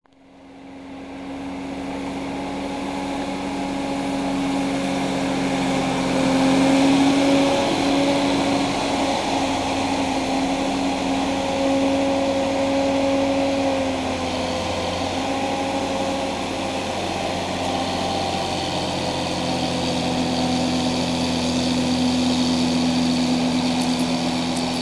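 Fendt 615 LSA tractor's diesel engine running steadily while it works a front blade on a maize silage heap. The sound fades in over the first couple of seconds, and the engine note wavers slightly with load.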